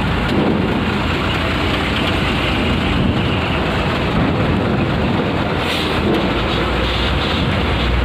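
Heavy diesel vehicle engines running at low speed, a cargo truck moving past and coaches idling: a steady low rumble.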